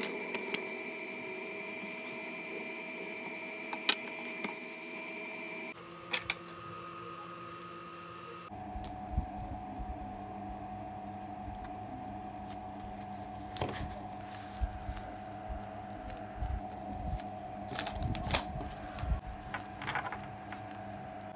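Quiet room with a steady faint hum and scattered light taps and clicks from hands working on a paper bullet journal, most of them in the second half.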